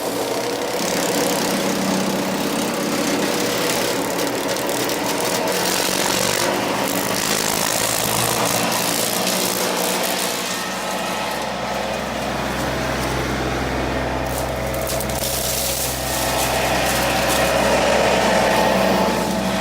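John Deere 2032R compact tractor's three-cylinder diesel running under steady throttle, driving a Frontier WC1103 PTO wood chipper, with irregular crackle over the drone. A deeper low hum joins from about halfway and holds.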